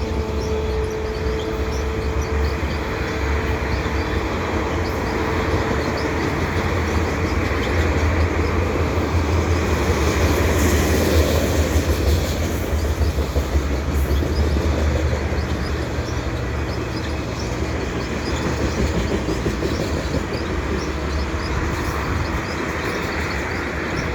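Canadian National freight train's cars rolling past: a steady rumble of wheels on the rails, swelling slightly about halfway through. A thin, steady whine fades out over the first several seconds.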